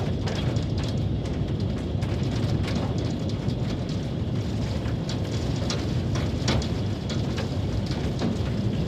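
Hailstorm with heavy rain and strong wind: a steady low rumble of wind and downpour, with many sharp ticks of hailstones striking surfaces scattered throughout.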